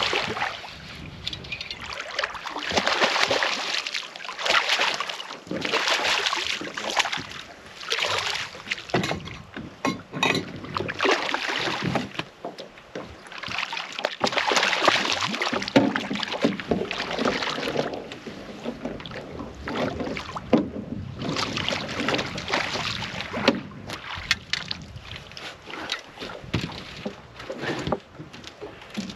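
Water splashing and sloshing in repeated surges as a hooked fish thrashes at the surface close to the boat, with scattered sharp knocks and clicks. Near the end it is lifted out in a landing net.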